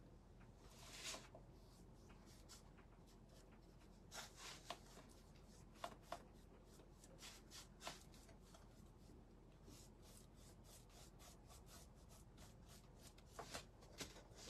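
Faint, scattered scratchy strokes of a paintbrush dry-brushing silver enamel paint onto a painted board, over near-silent room tone.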